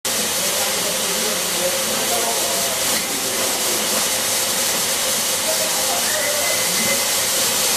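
TPM 18K high-speed pad printer for tin wine capsules running, a steady hissing machine noise with a faint held tone about six seconds in.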